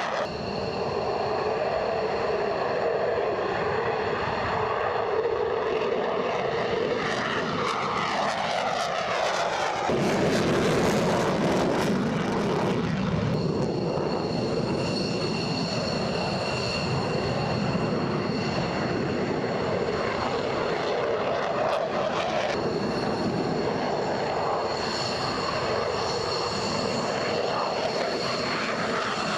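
F-15E Strike Eagle twin jet engines running at high power as the fighters take off and fly past. The pitch falls as a jet passes about a third of the way in. From about halfway through, a high engine whine rides over the roar.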